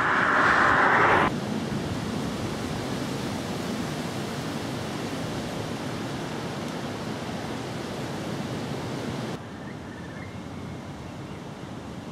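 Steady rushing outdoor wind noise on the microphone. It is louder and hissier for the first second or so, drops abruptly, and falls abruptly again to a quieter rush about nine seconds in, with one faint high chirp just after.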